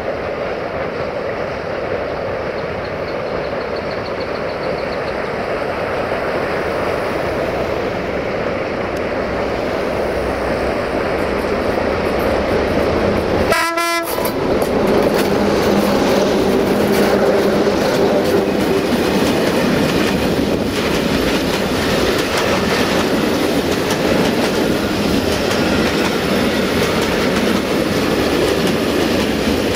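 Two LDE2100 diesel-electric locomotives with Sulzer engines working hard at the head of a freight train, getting louder as they approach. After a brief break about halfway through, the engines pass close by, and then the loaded tank wagons roll past with wheels clattering over the rail joints.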